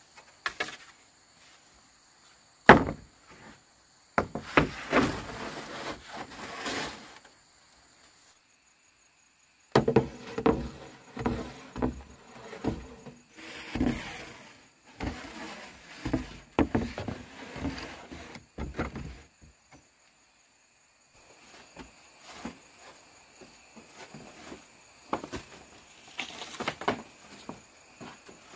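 Bamboo being handled and worked: a sharp knock a few seconds in, then stretches of scraping, creaking and squeaking wood, over a steady high-pitched insect drone.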